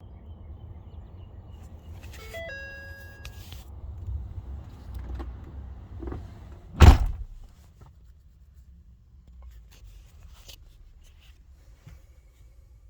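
Inside a 2012 Ford F550's cab: a low rumble, a short stepped dashboard warning chime about two seconds in, then a single loud thump about halfway through, after which the rumble falls away.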